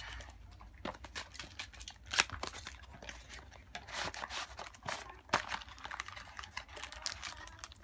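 Small cardboard toy boxes being handled and opened by hand: irregular light taps, scrapes and crinkling of cardboard and packaging, with a few sharper clicks.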